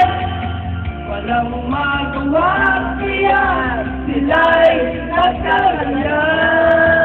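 Karaoke: singing over a backing track from the karaoke machine, with long held notes that bend and slide in pitch.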